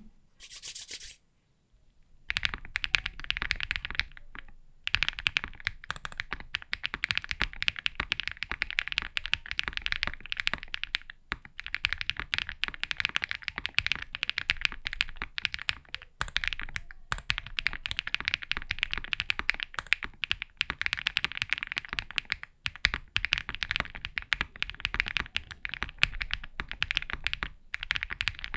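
Fast, continuous typing on an Owlab Mr. Suit mechanical keyboard with Durock POM linear switches, an FR4 plate and EPBT keycaps, giving a clacky, louder keystroke sound. The typing starts about two seconds in and runs in dense bursts with a few short pauses.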